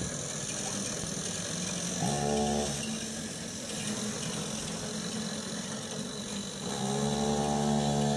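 Small engine of a child's mini hot rod car running steadily. Two long, steady-pitched tones stand out over it, one about two seconds in and a longer one near the end.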